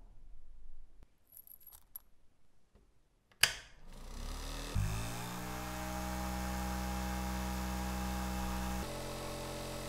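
A few small metal clinks, then a sharp switch click and the motor of a homemade tub tumbler spins up, its hum rising in pitch and settling into a steady whir under the hiss of the media swirling in the tub.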